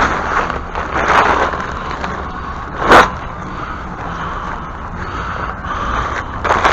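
Wind gusting across the microphone in swells, with one sharp bang about three seconds in.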